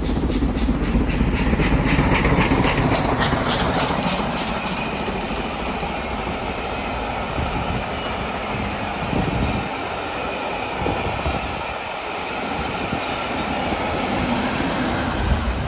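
A train running past over junction track, its wheels clattering in a quick regular rhythm over rail joints and pointwork for the first few seconds, then fading to a steady rumble.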